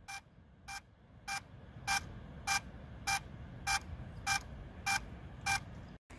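DJI Mavic Mini drone on the ground sounding an ESC error beep code: about ten short, evenly spaced beeps a little over half a second apart, growing louder over the first few. The owner traces the error to a warped left propeller that makes its motor spin abnormally and work too hard.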